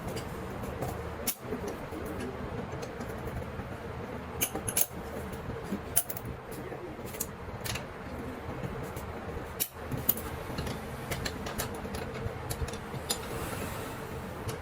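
Scattered short metallic clicks and clinks, as tools and small engine parts are handled, over a steady low background hum.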